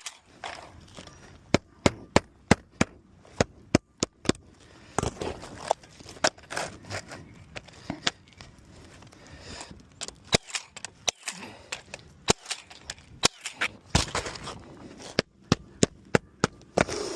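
Roof shingle repair work: a long, irregular series of sharp knocks and cracks of tools striking shingles and nails, some in quick clusters, with scraping in between.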